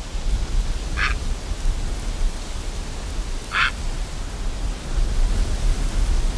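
Two short, high, stuttering calls from egret chicks in the nest, one about a second in and another about three and a half seconds in, over a steady low background rumble.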